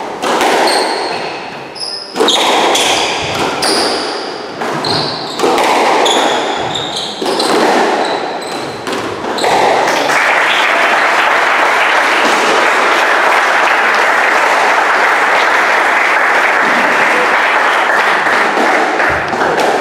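A squash rally: the ball cracking off rackets and court walls, about seven hits a second or two apart, each echoing in the court. About halfway through the hits stop and steady applause takes over as the match ends.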